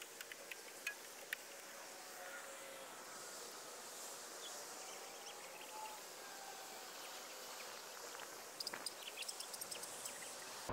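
Faint, calm outdoor ambience: a quiet steady hiss with a few faint drawn-out tones. A quick run of light ticks comes near the end.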